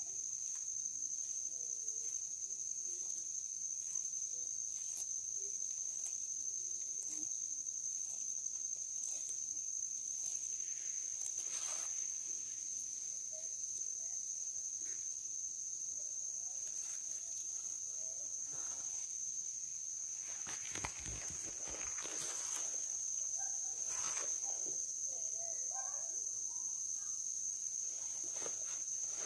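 Steady high-pitched drone of insects chirring, with a tortoise cropping and chewing grass and chayote over it: scattered sharp crunching clicks, thicker and louder a little past the middle.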